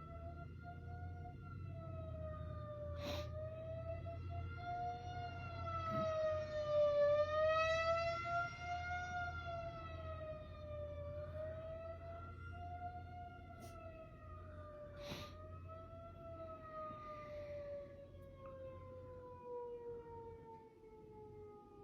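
Outdoor tornado warning siren sounding one continuous wail that slowly wavers up and down in pitch, then winds down, its pitch gliding steadily lower over the last several seconds. Two sharp clicks cut in, about three seconds in and again near fifteen seconds.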